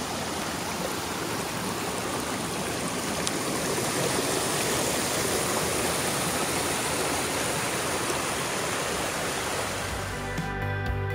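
Steady rushing of a small mountain stream cascading over boulders. About ten seconds in, music with a regular beat starts over it.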